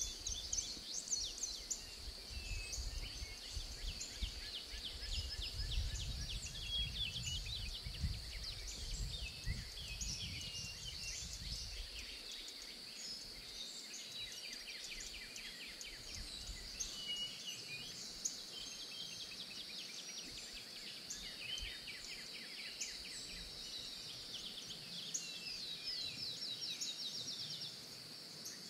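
Birds chirping and trilling over a steady high-pitched insect drone, with a low rumble for about the first twelve seconds.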